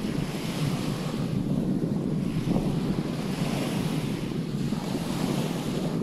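Small Baltic Sea waves washing onto a sandy beach, a fresh hiss of surf every second or two, over a steady low rumble of wind buffeting the microphone.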